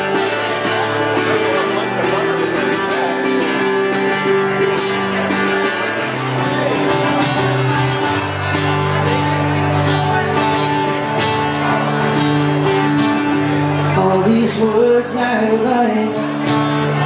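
A solo singer-guitarist performing a song: guitar with a man singing into a microphone.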